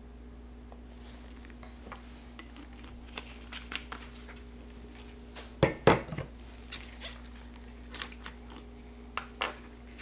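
Amber glass fragrance-oil bottles handled and set down on a wooden table: light clinks and taps, with two loud knocks about halfway through as a bottle is put down, and a couple more taps near the end.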